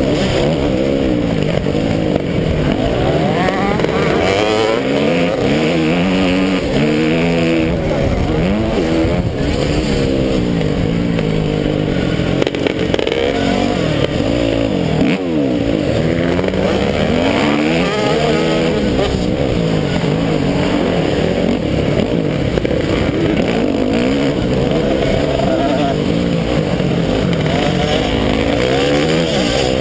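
Motocross bike engine heard close up from a camera mounted on the bike, revving up and dropping back again and again as the rider accelerates, shifts and backs off through the track.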